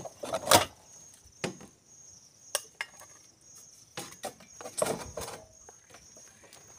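A final hacksaw stroke through a black gutter section about half a second in, then scattered light knocks and clicks as the saw and the cut piece are handled. A steady high insect trill runs underneath.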